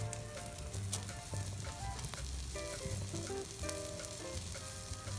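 Food sizzling steadily over the heat, with scattered small pops, under background music of held chords and bass notes.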